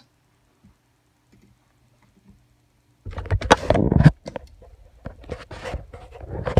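A faint hum, then about three seconds in a loud spell of rustling and knocks as the hand-held camera is moved. Scattered clicks of a computer keyboard and mouse follow, with one sharp click near the end.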